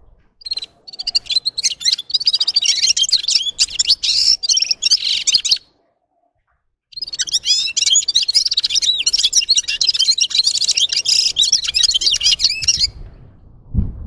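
Red-fronted serin singing a fast, high twittering song in two long bouts, with about a second of silence between them. A brief low thump near the end.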